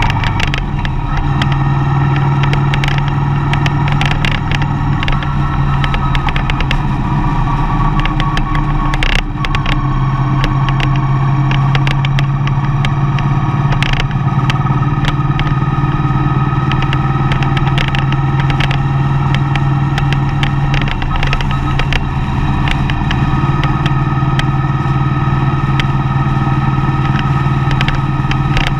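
A vehicle's engine running steadily while driving, its pitch shifting a little now and then, over road noise, with scattered light clicks and knocks.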